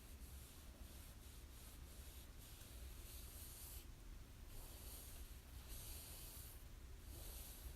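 A hand stroking a plush stuffed toy monkey, its fur brushing softly in a series of faint strokes, each under a second long.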